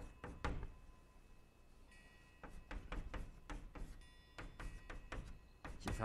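Chalk tapping and scraping on a blackboard as Chinese characters are written: a quick run of short taps, a pause of about a second and a half, then another run of taps.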